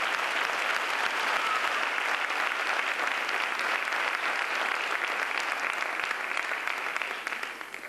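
Audience applauding with dense, steady clapping that fades out near the end.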